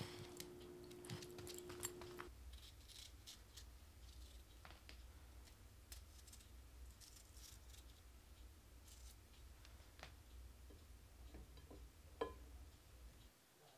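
Quiet, scattered clicks and taps of a kitchen knife slicing a cucumber over a plate, over a low hum. A steady tone stops about two seconds in, and one sharper click comes near the end.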